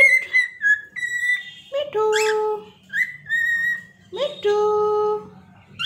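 Cockatiel whistling a string of about five short notes, each sliding quickly up and then held steady for about half a second; two of them, about two and four seconds in, are lower and fuller than the rest.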